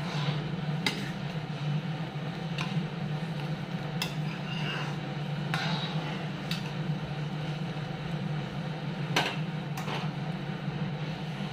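Steel ladle stirring a boiling curry in a steel pan, with several sharp clinks and knocks of metal on metal spread irregularly through the stirring, over a steady low hum.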